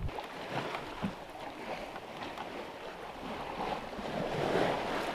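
Sea water rushing and splashing along a sailing yacht's hull as it moves through waves, with wind on the microphone; the rush swells about four seconds in.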